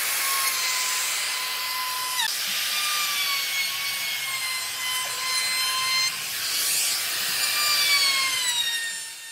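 Makita trim router running at a high whine while cutting along the edge of a wooden tabletop panel. Its pitch dips briefly about two seconds in, and near the end it is switched off and winds down, its pitch falling.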